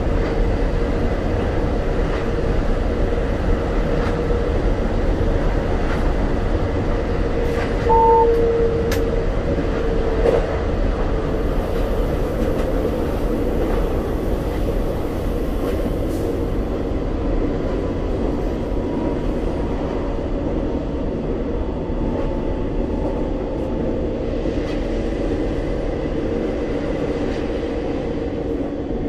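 Regio 2N electric multiple unit running along the line, heard from the driver's cab: a steady rumble and rolling noise with a constant whine. A brief louder tone sounds about eight seconds in, and a faint tone slowly drops in pitch later on.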